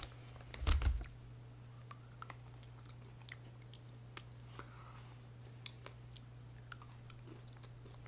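A person chewing a piece of candy close to the microphone: soft, scattered clicks and mouth smacks, with one louder thump about a second in. A steady low hum runs underneath.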